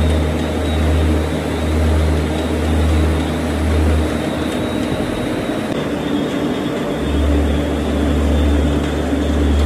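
Loud machinery running steadily, with a deep hum that swells about once a second. The hum drops out about four seconds in and comes back about three seconds later.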